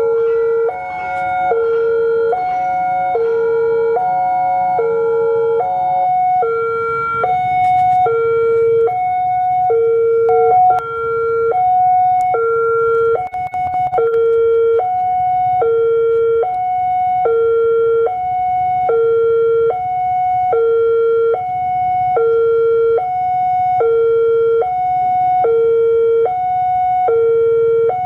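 Railway level-crossing warning alarm from a horn loudspeaker: an electronic two-tone signal alternating evenly between a low and a high tone, about one cycle a second, sounding as a train approaches. A second, steady multi-tone signal sounds alongside it and stops about six seconds in.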